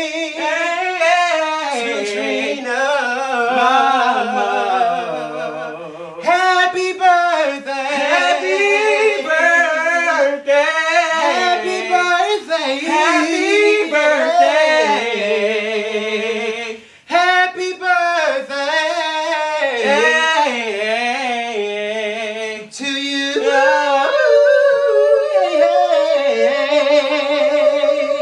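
Two men singing a birthday song a cappella, in long wavering runs with vibrato, breaking off for a moment about two-thirds of the way through.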